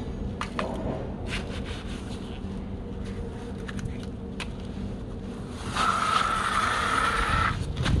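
Toy front loader scraping and tipping sand into a toy dump truck, with small gritty clicks and scrapes. About six seconds in, a steady whine from the toy dump truck's small electric motor runs for about two seconds as the truck drives off across the sand.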